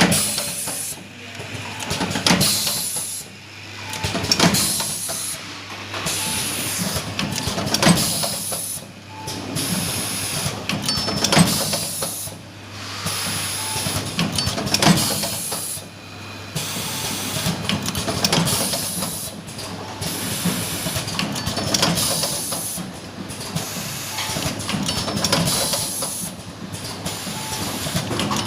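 Semi-automatic cable connector soldering machine running repeated work cycles: sharp clacks every second or two amid bursts of hissing, over a steady low hum.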